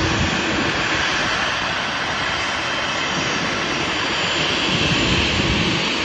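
Embraer 190 jet airliner's engines running: a steady, loud rushing noise with a faint low hum underneath.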